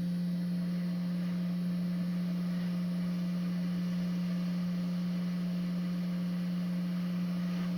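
Quick 861DW hot air rework station blowing at airflow 70 and 450 °C: a steady hum with a faint hiss of air, as the logic board is warmed before the chip is lifted.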